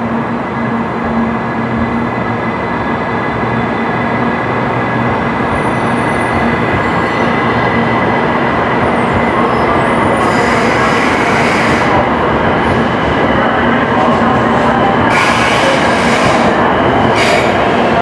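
Shinkansen bullet train rolling slowly in along the platform: a steady rumble and rail noise with a low hum and thin whining tones, slowly getting louder. Bursts of high hiss come in the second half.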